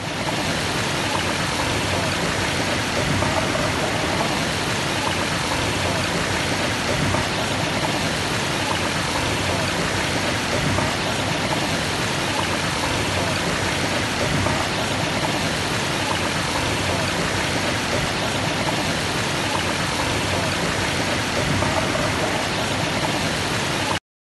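Wastewater pouring steadily over the glass-fibre (GRP) spillway of an Anaconda FRL-200 dissolved air flotation unit, a constant splashing rush of water. It cuts off suddenly near the end.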